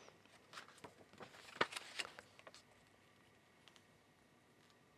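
Faint paper handling: a few soft rustles and light clicks as the pages of a printed instruction manual are turned, the sharpest about a second and a half in, then near quiet.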